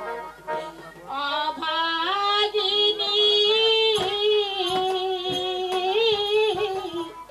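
A woman singing into a microphone, a Bengali jatra stage song: after a brief dip, she holds long notes with a slight waver.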